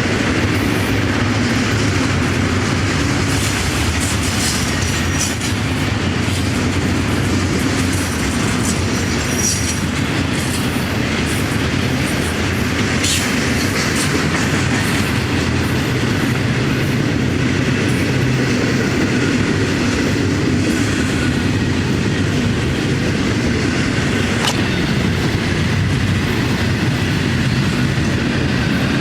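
A train rolling past close by: a steady rumble with wheels clattering over the rail joints, and a few short high squeaks and clicks.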